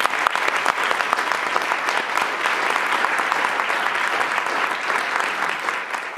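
Audience applauding, a steady mass of many hands clapping that fades out near the end.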